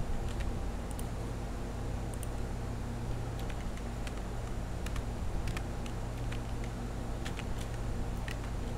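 Scattered single clicks of a computer keyboard and mouse as text is copied and typed, over a steady low hum.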